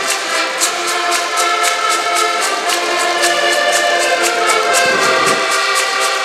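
An ensemble of diatonic button accordions playing a tune together in sustained reedy chords, over a steady beat of sharp high clicks.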